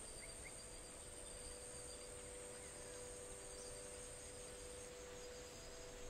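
Faint, steady, high insect trilling, like crickets, over a few soft held tones of an ambient drone, with two tiny chirps just after the start.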